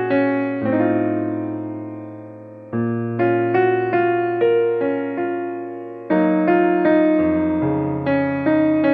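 Background music: a piano playing a gentle melody of struck notes that ring and fade, over held bass notes, with the harmony changing every few seconds.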